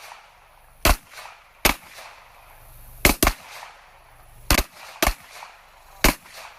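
Handgun shots on a firing line: about eight sharp single shots at irregular intervals, some less than a second apart, a couple almost back to back.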